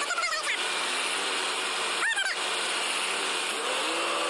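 Freightliner semi truck's diesel engine running steadily, with two short high yelps over it, one at the start and one about two seconds in.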